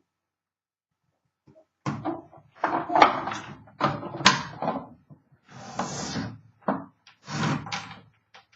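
Wooden, cloth-covered typewriter case being handled and closed: a string of irregular knocks and clunks, with a short scraping slide in the middle.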